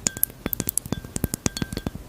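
Rapid, irregular glass clinks and taps, many a second, some leaving a brief ringing tone.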